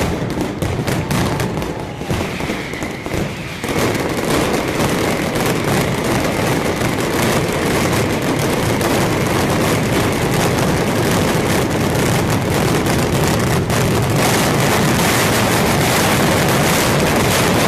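Mascletà firecrackers going off in rapid succession: separate sharp bangs for the first few seconds, then so many at once that they run together into one continuous, loud din, typical of the closing 'terremoto' of a mascletà.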